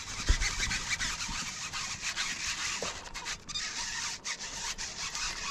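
Steady rasping, rubbing noise, with a few low thumps near the start.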